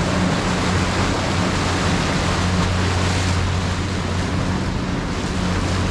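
Water rushing past the hull and wind on the microphone as a disabled boat is towed at speed, under a steady low drone from the towing boat's engines.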